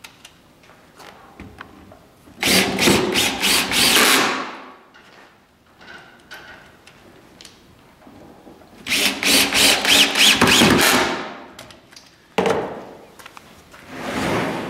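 DeWalt cordless drill driving two pocket-hole screws into a pine frame. The runs are about two seconds each and about six seconds apart, and each trails off as the screw seats. A sharp knock comes near the end.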